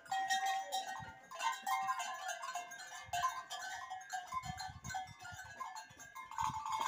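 Young goats bleating: many short, high calls overlapping one after another.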